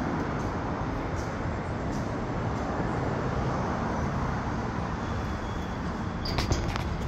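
Steady rushing of wind buffeting the phone's microphone as the open chairlift glides along, with a few light clicks near the end.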